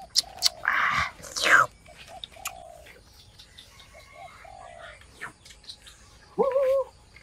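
Short animal calls, ending in a louder wavering call a little before the end, after a few loud noisy bursts in the first second and a half.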